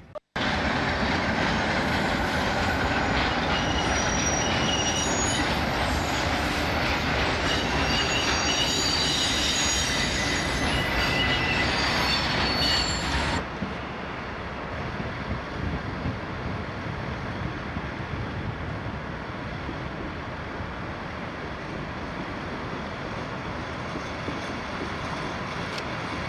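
Train wheels squealing on curved track, several high squeals over loud rolling noise, for about thirteen seconds. It cuts off suddenly, giving way to the quieter, steady running of a first-generation diesel multiple unit drawing in.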